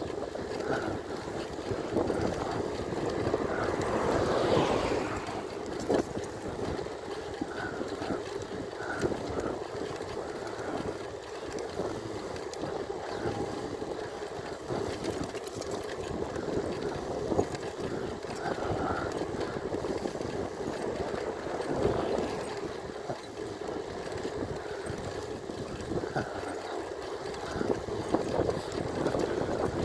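Steady wind rush and tyre noise from an e-bike riding along a paved road, with a louder swell about four seconds in.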